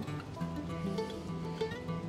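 Background music led by plucked guitar, with held notes moving from one to the next.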